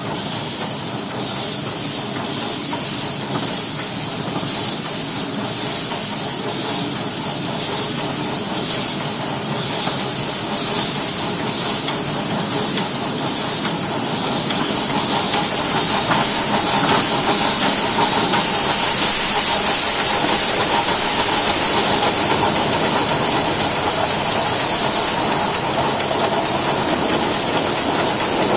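Crown narrow-gauge live-steam locomotive under way, heard from the cab: a loud, steady steam hiss with faint regular beats about one or two a second through the first half. A faint higher tone comes in about halfway through.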